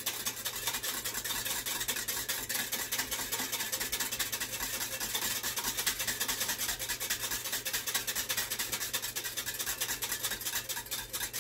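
Small wire whisk beating yeast, sugar and warm water in a glass measuring cup: a rapid, steady scraping and clinking of the wires against the glass.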